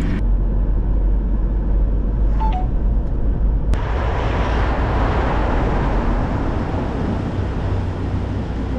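Alfa Romeo car on the move, heard from inside the cabin: a steady low rumble of engine and road. About three and a half seconds in, a louder rush of wind and tyre noise cuts in suddenly and then slowly eases.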